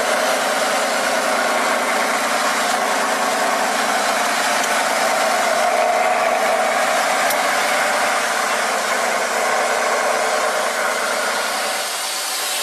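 Heavy off-road trial truck's engine running steadily under load as the truck crawls up a steep rocky step, swelling slightly partway through and easing a little near the end.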